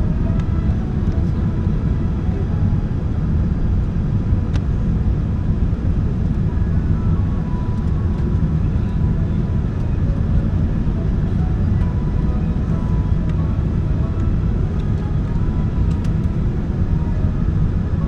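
Steady low rumble of a jet airliner's engines and airflow, running evenly with no change in level, as heard on board during the approach.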